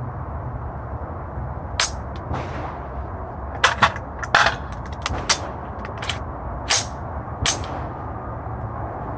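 About eight single gunshots at uneven intervals, two of them close together near the middle, over a steady low rumble.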